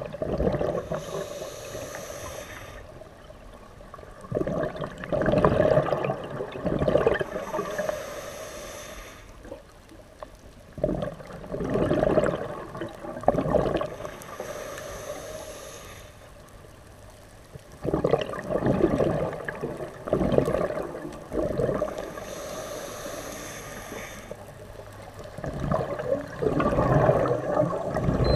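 Scuba breathing heard underwater: four slow breaths, each a hiss of inhaling through the regulator followed by a loud bubbling rush of exhaled air, about every seven seconds.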